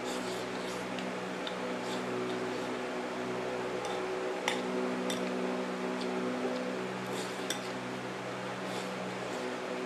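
Scattered light clinks of a utensil against a plate and bowl while eating noodles and rice, over a steady low hum.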